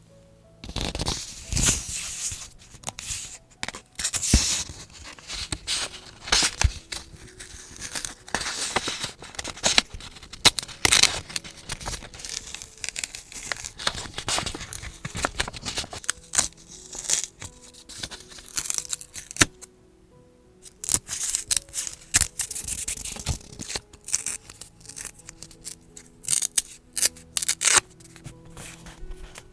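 Paper being torn and snipped with scissors in irregular bursts of rustling and crisp clicks, with a brief pause about two-thirds of the way through. Soft background music plays underneath.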